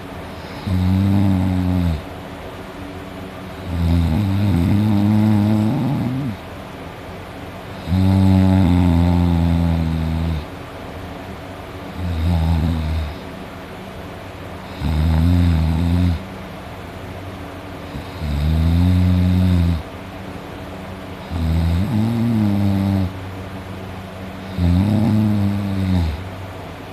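A person snoring deeply in sleep: a low-pitched snore on each breath, eight in a row, spaced about three to four seconds apart.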